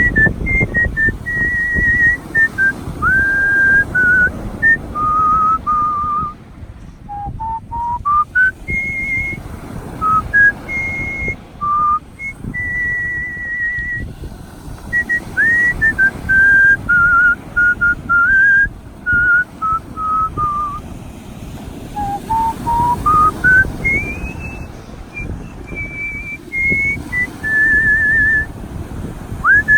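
Artistic whistling by a person: a solo whistled melody of one pure tone, with vibrato on held notes and quick upward slides into notes, over a steady low background rumble.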